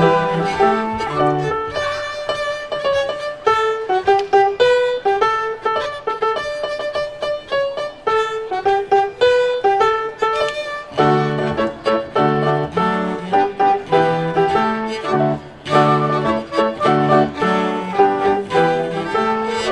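Chamber ensemble of flute, violin, cello and grand piano playing a Christmas piece. The low part drops out for a stretch after the opening and comes back about halfway through.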